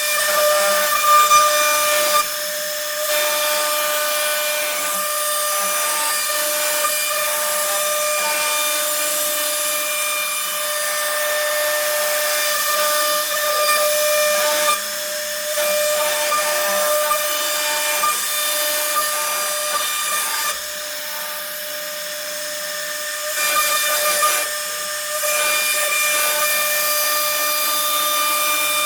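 CNC router spindle cutting a 2D profile. It gives a steady high whine over a hissing cutting noise, which swells and shifts briefly a few times as the bit changes direction or load.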